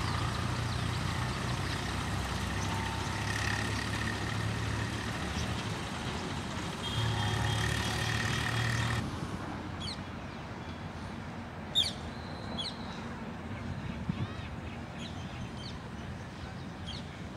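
Swaraj 735 FE tractor's diesel engine idling steadily. About nine seconds in the sound cuts to a quieter engine hum with a few short high chirps and a single sharp click.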